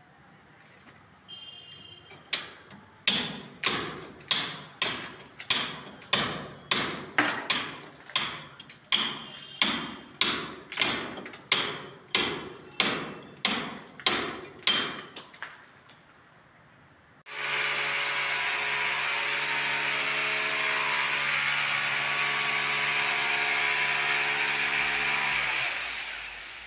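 Hand hammer striking a chisel into a brick wall to cut a channel for wiring conduit, about two blows a second for some thirteen seconds. About seventeen seconds in, an electric power drill's motor starts and runs steadily for about eight seconds, then winds down.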